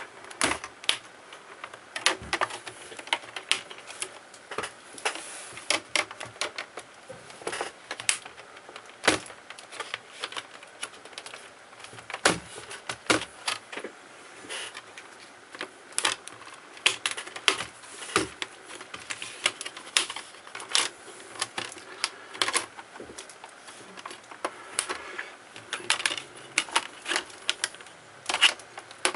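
Plastic screen bezel of a Dell Studio 1555 laptop being pried off by hand, its snap clips popping loose in a long run of irregular clicks and cracks.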